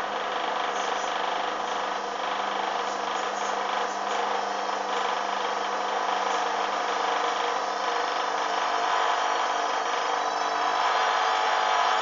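Hoover front-loading washing machine's drum motor whining as the drum speeds up from tumbling into a spin. The pitch rises slightly and the sound grows a little louder over the last few seconds as the clothes pin to the drum wall.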